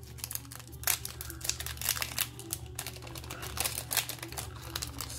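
Foil trading-card booster pack wrapper crinkling and rustling in the hands, with scattered light clicks.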